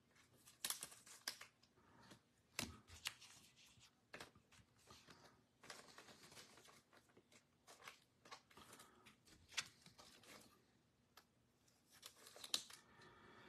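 Faint, scattered clicks and short rustles of trading cards and plastic card holders being handled and loaded.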